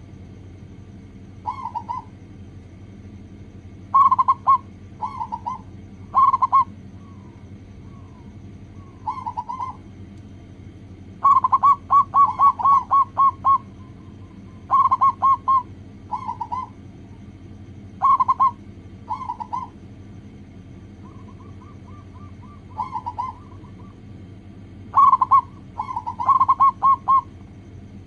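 Zebra dove (perkutut) cooing: short phrases of quick rolling coo notes repeated every second or two, some drawn out into fast runs, over a steady low hum. Played as a lure call to set other zebra doves singing.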